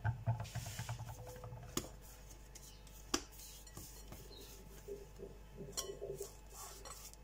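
Hands rounding a ball of bread dough and setting it into an oiled glass bowl: soft handling sounds with a few light taps and clicks.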